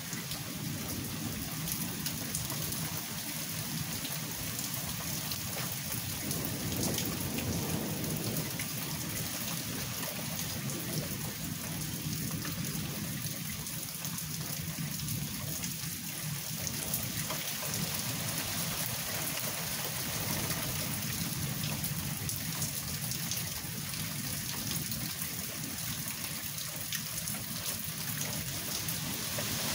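Thunderstorm: rain falling steadily with many fine drop ticks, and low thunder rumbling underneath that swells at times.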